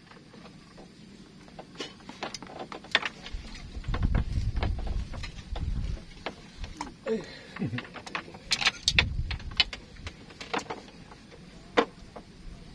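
Fishing rod being handled at its rack and its reel wound in: a run of sharp clicks and clacks, with low thumps of handling twice in the middle.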